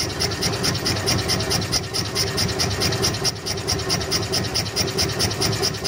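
Homemade Stirling engine running fast, driving a car alternator: a rapid, even clatter of about eight beats a second over a steady hum. The alternator's field windings are disconnected, so it takes little load and the engine runs up to high speed.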